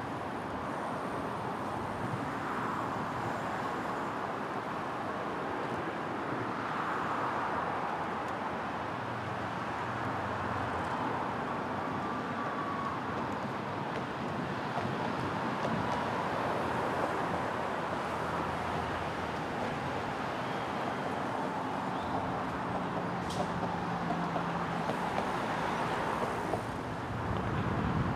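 Steady road noise of a large pack of road bicycles rolling by, a continuous hiss of tyres and freewheels with no single sound standing out.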